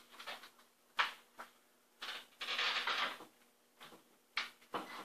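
Handling noises of hand-tool work on a cabinet: scattered sharp clicks and knocks, the loudest about a second in, and a rattling scrape lasting about a second from two seconds in, as a cordless drill/driver is handled at the spice rack.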